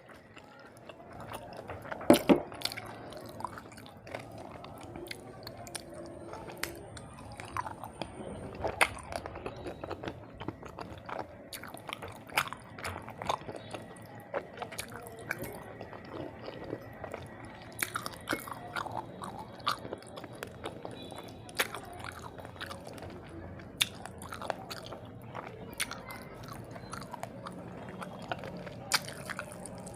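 Close-miked mukbang eating: a person chewing and biting through a rice and fish meal, with scattered sharp crunches, the loudest a cluster about two seconds in.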